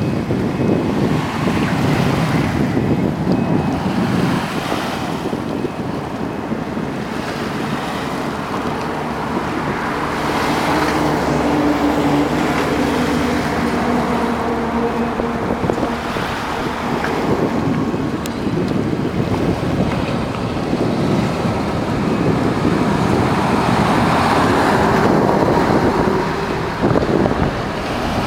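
Wind buffeting the microphone in uneven gusts, over the steady noise of road traffic going by.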